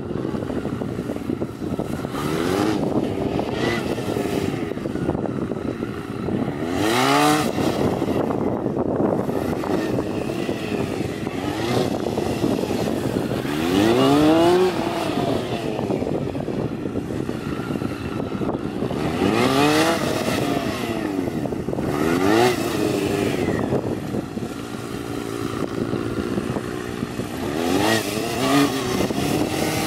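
Honda CBR929RR's inline-four engine revving up and falling back in repeated swells every few seconds, as the motorcycle is ridden through tight leaning circles.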